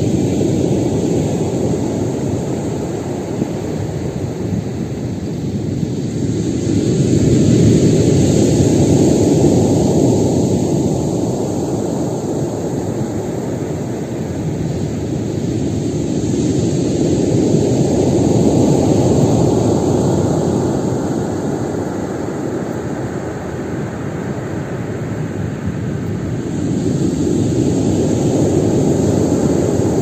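Stormy sea surf: heavy waves breaking in a continuous roar that swells and eases three times, about ten seconds apart.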